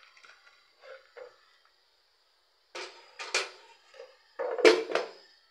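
Kitchen handling noise: a few faint clinks, then two loud bursts of knocking and scraping, the second about four and a half seconds in and the loudest.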